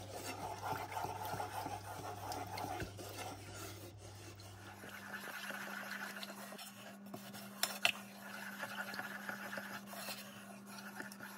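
A wooden spoon stirs and scrapes around a nonstick saucepan as cold milk is worked into a butter-and-flour roux for béchamel, mixed to keep lumps from forming. It is a continuous rubbing scrape, with one sharper knock about eight seconds in.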